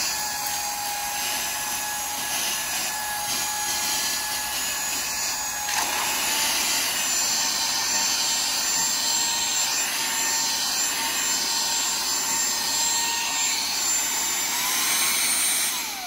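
Lydsto Duo Plus cordless handheld vacuum running on its first power setting with a steady high whine, sucking up spilled coffee and dry vermicelli with small rattles of debris. Its whine rises near the end, then falls away as the motor is switched off and spins down.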